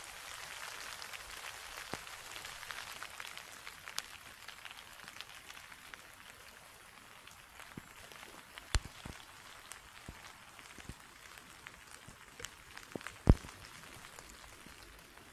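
Light rain falling, a faint even patter with many small drop ticks; two louder single taps of drops landing close by, about nine and thirteen seconds in.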